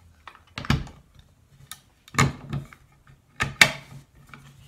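Several sharp metal clacks and clicks, some in quick pairs, as a railed top cover is fitted and latched down onto an AK pistol's receiver.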